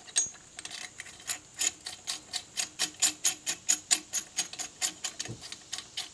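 Hand ratchet clicking in quick, even strokes, about four or five clicks a second, as a fastener is turned. The clicks are loudest in the middle and ease off a little near the end.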